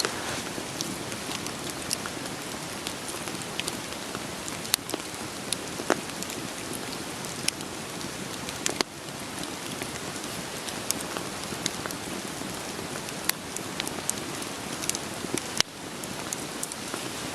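Steady rain falling, mixed with the sharp, irregular pops and crackles of a wood fire burning.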